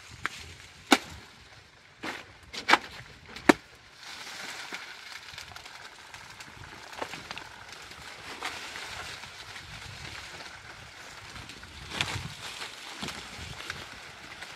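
Three sharp chopping blows into a banana plant's soft stem in the first four seconds, then a steady rustle and crackle of the big leaves, louder about twelve seconds in.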